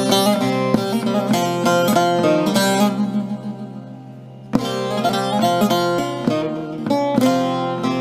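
Background music led by a plucked string instrument playing quick notes. It thins out and drops in level about three seconds in, then starts again abruptly about a second and a half later.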